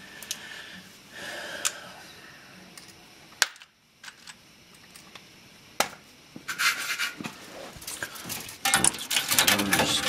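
Scattered sharp clicks, then light rattling and rustling that grows busier and louder over the last few seconds: hands handling the wiring and a furnace control board during a board replacement.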